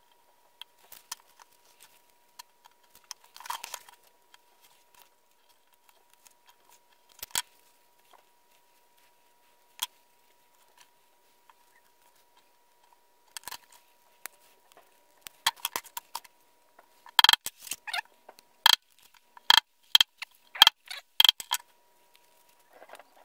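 Hand work on a leather sheath at a workbench: scattered small clicks and handling noises. In the second half comes a run of about a dozen louder, sharp metallic clicks that ring briefly. A faint steady high tone sits underneath.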